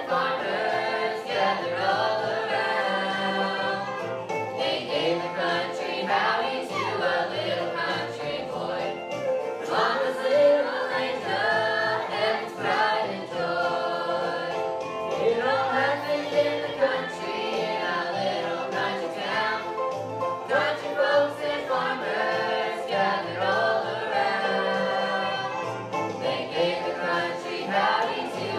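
A group of young voices singing a song together over a steady instrumental accompaniment.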